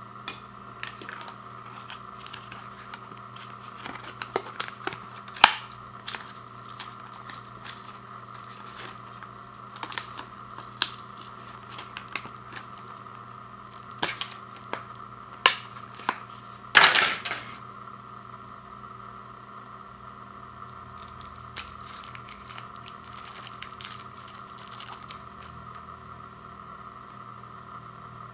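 Paper and card packaging of a battery blister card being torn and peeled open, with scattered crackles and clicks of paper and plastic; the loudest tear comes about seventeen seconds in, with a few fainter crinkles after it.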